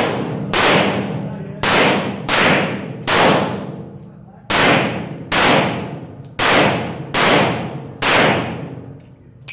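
A string of nine pistol shots, each with a long echoing decay, fired about one a second with a short pause near the middle.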